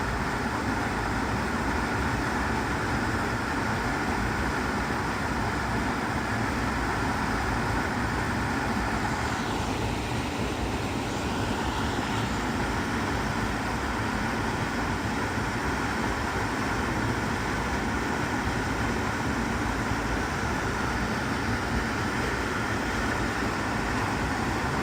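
Waterfall pouring into its plunge pool: a steady, even rushing of water.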